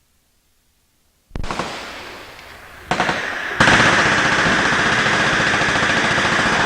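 Automatic gunfire from several machine guns, breaking out suddenly about a second in as a dense stream of rapid shots. It grows louder twice as more guns join, then holds as a continuous barrage.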